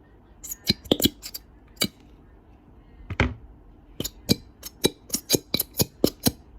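Plastic glue bottle being squeezed and worked by hand, giving a run of sharp, irregular clicks and taps, with a pause partway through, one heavier knock and a quicker string of clicks in the second half.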